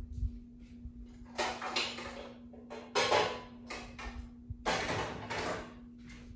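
Pots and pans being handled and moved about, a series of scraping, clattering bursts of cookware.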